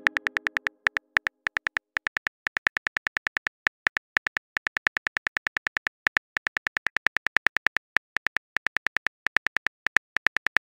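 Simulated phone-keyboard typing clicks from a texting-story app: a quick, even run of short clicks, several a second, with brief pauses between words. A ringing note fades out over the first second.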